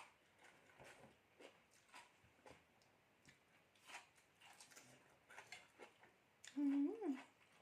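Soft mouth clicks and smacks from someone chewing food, with a short hummed "mmm" that rises in pitch near the end.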